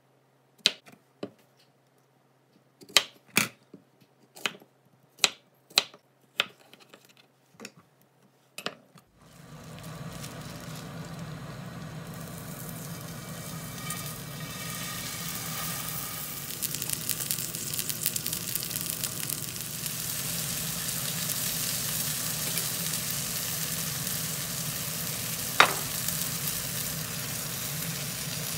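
A kitchen knife cuts button mushrooms on a wooden cutting board in about ten sharp knocks. About nine seconds in, a beef tenderloin steak hits a hot black oval pan and starts sizzling steadily, a little louder as it goes on. There is one sharp clink near the end.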